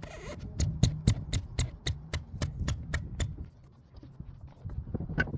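A brief hiss, then a quick, even run of about a dozen sharp clicks, roughly four a second, over a low rumble.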